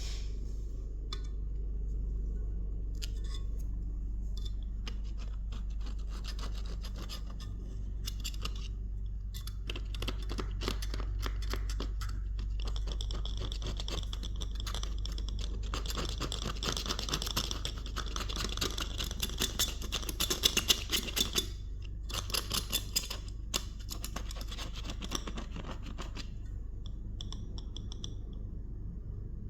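Rapid scratching and rubbing strokes of a cotton bud and scraper working leftover foam off the surround ring of a McIntosh 6-inch speaker cone. The strokes build up about a third of the way in, with a few sharper scrapes after the middle, and ease off near the end, over a steady low hum.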